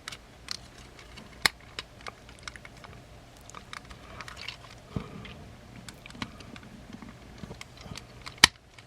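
Hard plastic parts of a Transformers toy figure clicking and snapping as they are handled and pegged together, with scattered small clicks and one sharp snap near the end.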